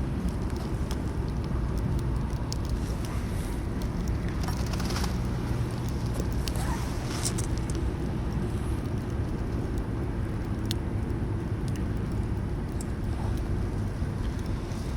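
Wood campfire burning, with scattered sharp crackles and pops over a steady low rumble.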